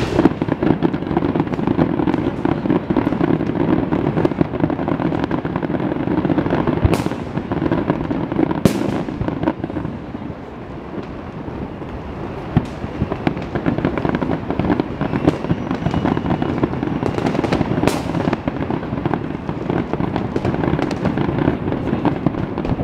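Fireworks display: a continuous barrage of rapid bangs and crackling from bursting shells. A few sharper cracks stand out, about seven, nine and eighteen seconds in.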